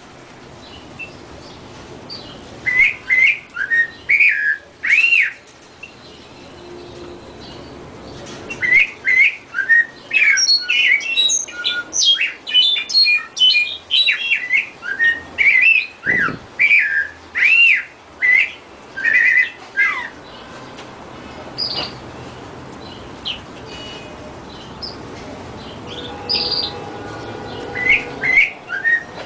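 A bird chirping and whistling in quick runs of short up-and-down notes, in three spells broken by pauses of a few seconds.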